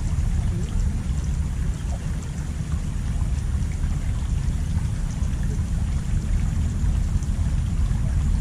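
Steady rushing noise of water flowing along a small ditch, heavy in the low end, with no distinct events.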